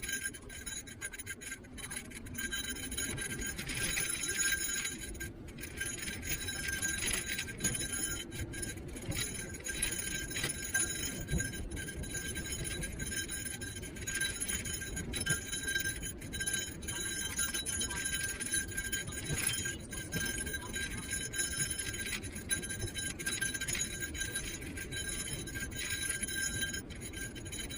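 Niu KQi3 Pro electric kick scooter riding: a steady high motor whine over low road and wind rumble, with light clinking rattles.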